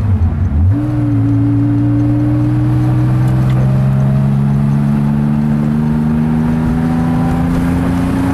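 1969 Porsche 911T's air-cooled flat-six engine, heard from inside the cabin while the car is driven. The revs drop sharply at the start, as for a gear change, then pick up and climb slowly through a long steady pull, and drop sharply again right at the end.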